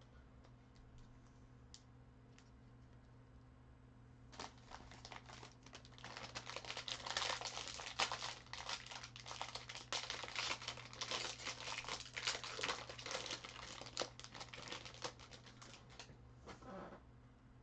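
Foil trading-card pack wrapper crinkling and crackling as it is torn open and handled, starting about four seconds in and stopping near the end.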